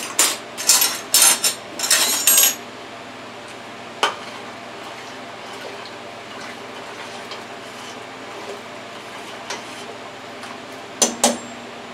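A metal spoon clinking and scraping against a stainless steel stockpot as soup is stirred: a quick run of strokes in the first two and a half seconds, a single knock about four seconds in, and a few more clinks near the end.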